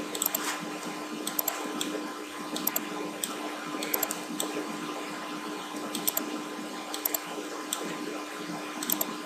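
Computer mouse clicking about a dozen times at irregular intervals, often in quick press-and-release pairs, as objects are selected and dragged. Underneath is a steady electrical hum and hiss.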